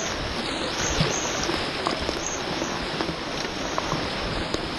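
Steady rush of river water around an inflatable raft, with a few faint short splashes or knocks from paddles.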